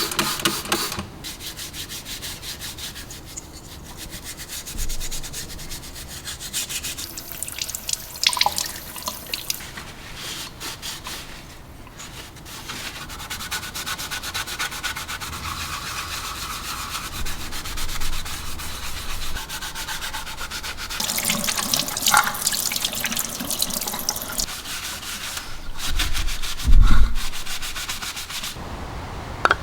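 Rapid abrasive rubbing strokes on a restored part, a scratchy sanding-like sound that stops and restarts several times, with a low knock near the end.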